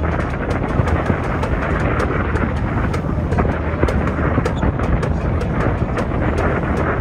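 Wind blowing on the microphone over a steady low rumble, with frequent crackling buffets.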